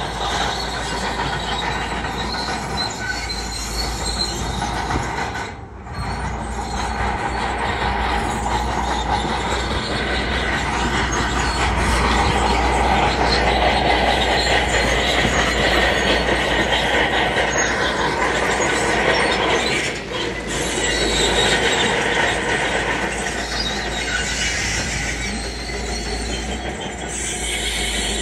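Crawler bulldozer at work: diesel engine running under load while its steel tracks squeal and clank.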